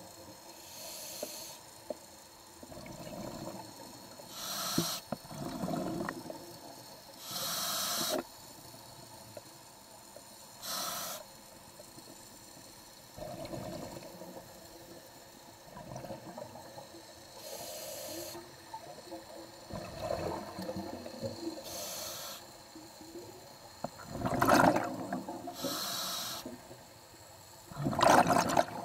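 A scuba diver breathing through a regulator: a hiss from the demand valve on each inhale, then a bubbling rush of exhaled air, repeating every few seconds. The loudest exhalation bursts come near the end.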